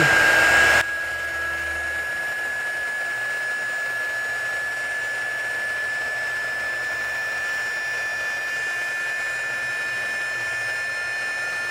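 Small 300-watt mini heat gun running steadily: an even rush of air with a constant high whine from its fan motor. About a second in the level drops slightly, then stays even.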